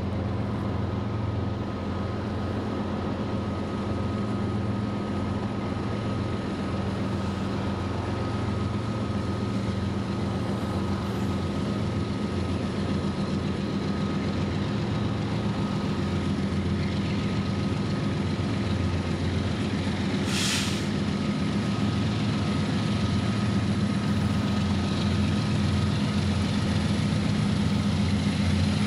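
Diesel locomotive engines running steadily, slowly growing louder, with a short burst of air hiss about two-thirds of the way through.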